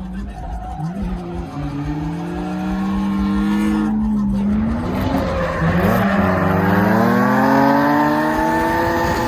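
Lexus SC300's turbocharged 1JZ-GTE inline-six revving hard, its pitch climbing twice with a brief drop about four seconds in and again near six seconds. From the middle on there is tyre squeal as the car drifts.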